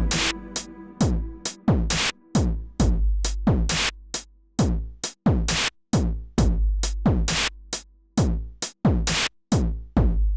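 Electronic background music with a drum-machine beat, about two hits a second over a deep bass line.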